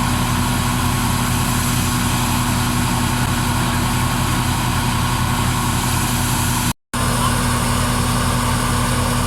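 Tractor and wheat thresher running steadily, with a regular low engine pulsing. The sound cuts out completely for a moment about seven seconds in.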